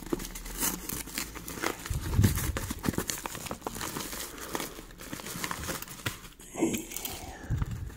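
Packaging crinkling and tearing as a parcel is unwrapped, with many small crackles and clicks and a few soft thuds of handling.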